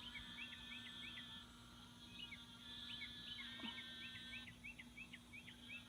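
Birds chirping faintly in quick series of short whistled notes, over a steady low hum.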